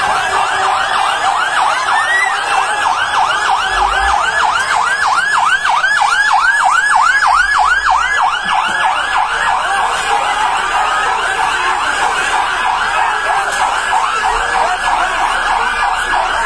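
Fire engine siren sounding a fast yelp, a rapid rise-and-fall repeated about four times a second. The sweeps grow less even in the second half.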